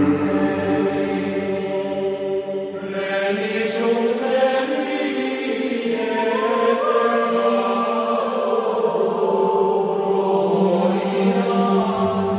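Background music: a slow, sustained choral chant of held voices that shift gradually in pitch, with a brief brighter swell about three seconds in.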